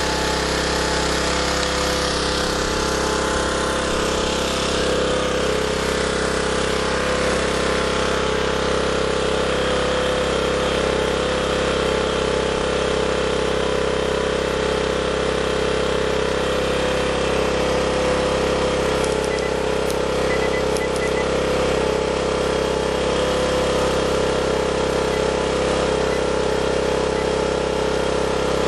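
Small portable generator's engine running steadily at a constant speed.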